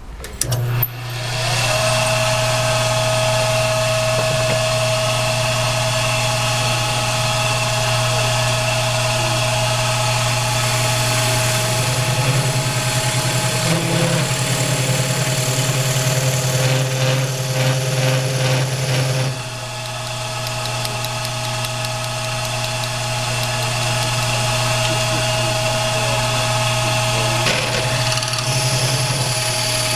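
Lathe motor starting up a second in and running with a steady hum while a drill bit bores the tobacco chamber into a pipe block. The sound turns rougher and uneven for several seconds midway as the bit cuts, then drops a little and settles back to a steady run.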